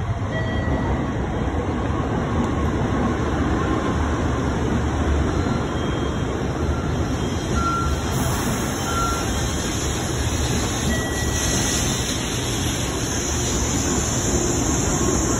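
Shinkansen train pulling into the platform, a steady rumble of wheels and running gear as the cars slide past, with a few short high tones now and then. A hiss joins in from about halfway through.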